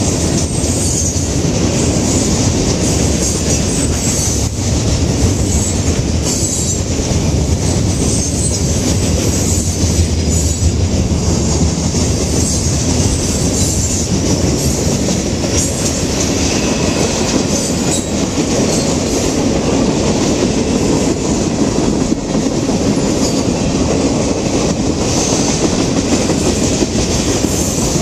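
Freight cars of a mixed CSX train rolling past close by: a steady, loud rumble of steel wheels on rail with clacking as the wheels cross the rail joints.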